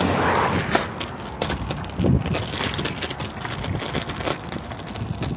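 Scooter rolling over rough ground: a steady wheel rumble broken by a stream of rattles and clicks.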